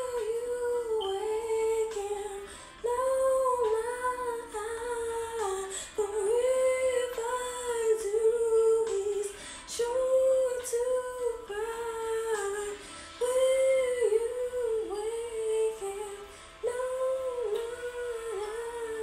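A woman singing a wordless lullaby melody, likely humming, in gentle phrases of a few gliding notes with short breaths between them.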